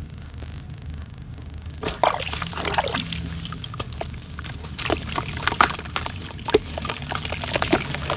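Hands squeezing and lifting clumps of wet, dark sand-and-charcoal paste in a plastic basin, with wet squelches, splats and drips as the paste falls back. The splatting starts about two seconds in and grows busier near the end.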